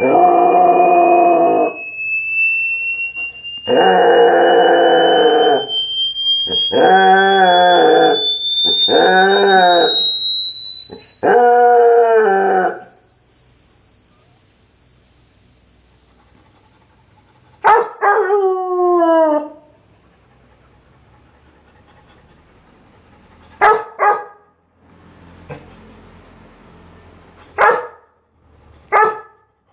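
A pure hearing-test tone sweeping slowly and steadily upward in pitch, with a dog howling along to it in long wavering howls through the first half. After that comes one falling whine, and near the end a few short sharp yips.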